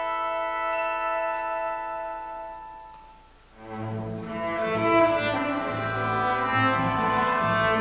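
Sheng concerto with symphony orchestra: a long held chord fades away to near silence about three and a half seconds in, then the orchestra comes back in with low bowed strings under a moving melody.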